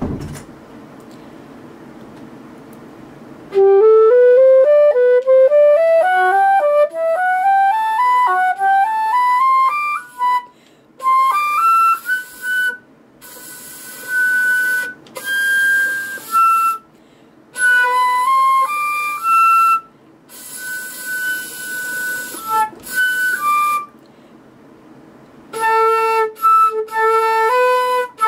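A beginner student flute with a gold lip plate played solo, after a brief knock at the start. A few seconds in it begins a quick rising run of notes, followed by phrases of held notes broken by short pauses for breath.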